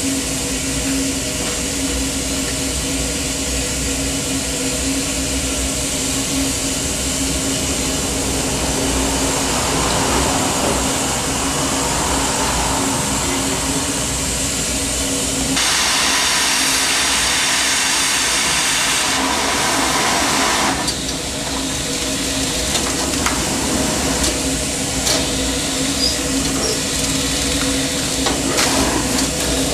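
Steam locomotive Wee Georgie Wood standing in steam: a steady hiss with a low hum. About halfway through, a louder rush of escaping steam starts suddenly and cuts off about five seconds later. A few knocks come near the end.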